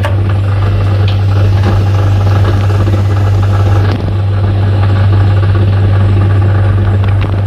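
A loud, steady low motor hum with a rattling clatter over it, dipping briefly about four seconds in.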